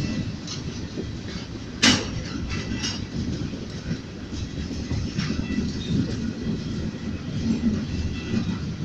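Ferromex freight train rolling past: a steady low rumble with wheel clacks, and one sharp bang about two seconds in.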